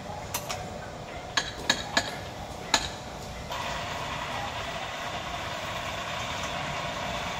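A handful of sharp clicks and knocks in the first three seconds, then a steady motor running starts abruptly about halfway through and keeps going.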